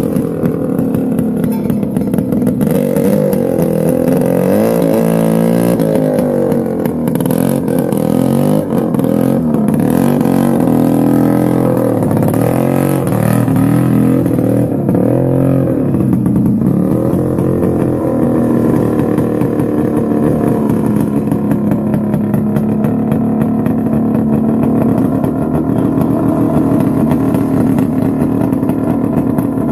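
Vintage snowmobile engines running, several at once, their pitch rising and falling as they are revved, then settling to steadier running in the second half.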